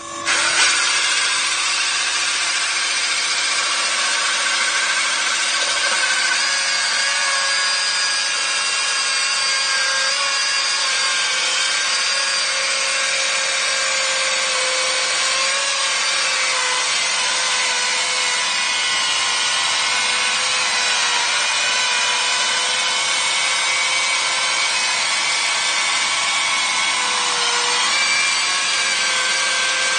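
ICS 890 concrete chainsaw with a diamond chain plunge-cutting into a concrete wall. It runs steadily under load with a continuous grinding, after a couple of sharp knocks right at the start as the bar bites in.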